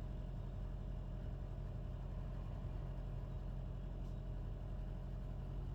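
Steady low mechanical hum, even throughout, like a machine or engine running.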